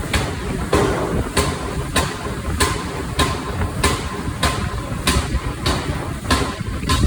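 Automatic forging machine striking steel bearing blanks in a steady rhythm, about three blows every two seconds, each a sharp clank with a brief metallic ring, over a steady low machine rumble.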